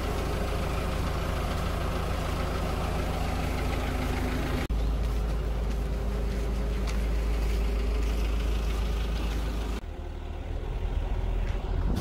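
Engine of a small crane-equipped cargo truck running steadily at idle, a constant low hum. The sound shifts abruptly about five seconds in to a deeper rumble, and gets quieter near ten seconds.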